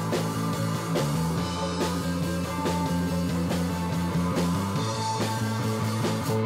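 Live rock band playing: electric guitar chords and bass over a drum kit, the bass dropping to a lower note about a second in and returning near the end.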